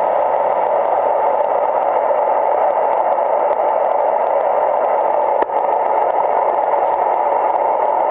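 Hallicrafters SX-71 communications receiver's audio output: a steady hiss of receiver noise, heard while it is tuned to an unmodulated 3 MHz test carrier from a signal generator and turned up for a signal-to-noise reading. One small click about five and a half seconds in.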